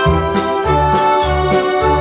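Background music: keyboard-led instrumental with a steady bass beat of about two notes a second.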